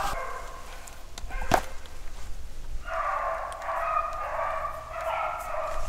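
Beagles baying in the distance, several voices overlapping, starting about three seconds in. It is the sound of the hounds jumping a rabbit and opening on its scent. A single sharp click comes about a second and a half in.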